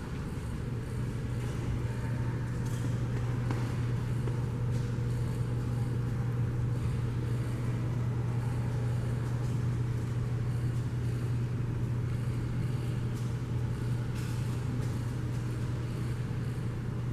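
A steady low hum with a hiss over it. The ghost hunters present it as a disembodied voice crying.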